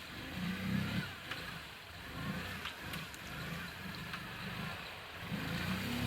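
Off-road vehicle engine revving in repeated surges, its pitch rising and falling as it is worked through the mud and water.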